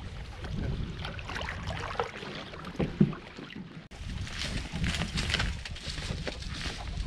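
Aluminum-trimmed canoe grinding into a rocky portage landing, with wind on the microphone and one sharp knock about three seconds in. After a sudden cut, rustling and footfalls on a forest trail as the canoe is carried.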